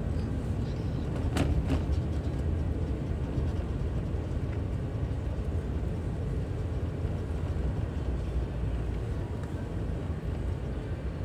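Steady low rumble of a car driving along a paved town road, heard from inside the cabin: engine and tyre noise. A brief click about a second and a half in.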